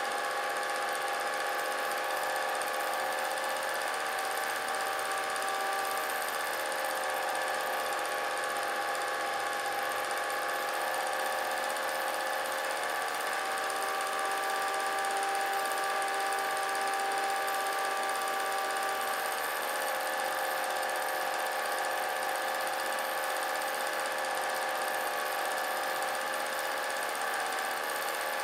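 Vintage film projector running: a steady mechanical whir from its motor and mechanism, with a few steady tones that waver slightly in pitch.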